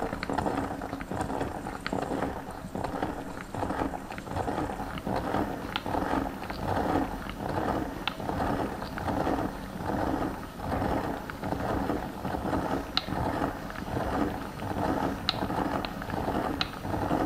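Hand-cranked metal meat grinder squeezing marshmallows through its cutting plate: a sticky squelching and creaking that pulses in a steady rhythm with each turn of the crank, with occasional small clicks.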